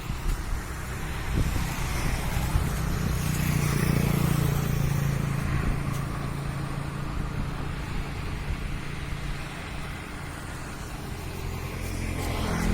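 Motor vehicle engine running with a low hum that swells a few seconds in, eases off, and grows louder again near the end.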